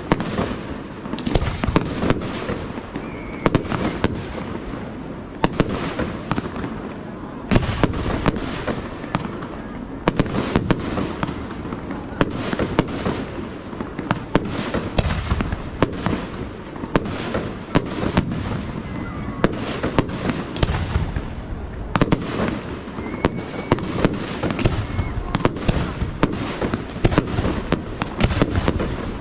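Fireworks display: aerial shells bursting in quick, uneven succession over a continuous crackle, with no pause between bangs.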